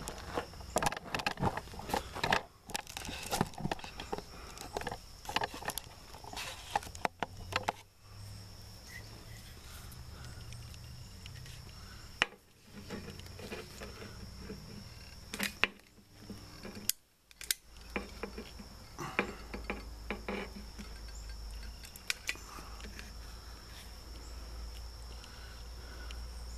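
Handling noises from hands-on work on a wood stove insert: many scattered clicks and scrapes for the first several seconds, then only a few sharp clicks over a steady low hum.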